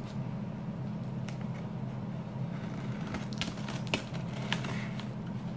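Hands handling a cardboard shipping box as it is being opened: scattered short scrapes and taps on the cardboard over a steady low hum.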